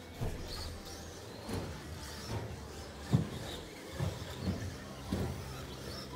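Radio-controlled stock trucks racing on an indoor track: a string of short, dull thumps and knocks as the trucks hit the boards and bounce over the track, the sharpest about three seconds in, over a steady low hum.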